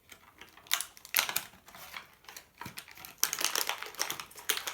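Plastic toy packaging being handled, crinkling with irregular sharp clicks, busiest in the last second and a half, as the key is worked out of it.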